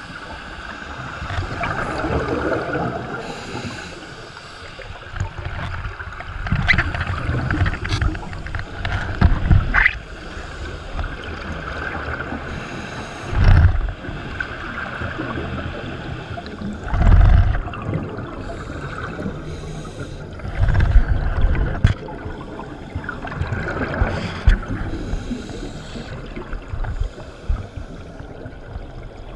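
Scuba diver's regulator breathing heard underwater: bursts of exhaled bubbles rumbling past the camera housing about every three and a half to four seconds, over a steady watery hiss.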